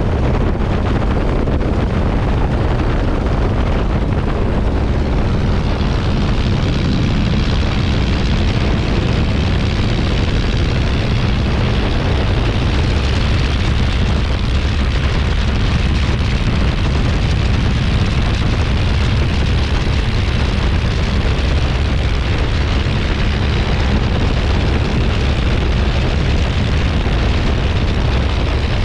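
Miles Magister's de Havilland Gipsy Major piston engine and propeller running at steady power, a loud, even drone.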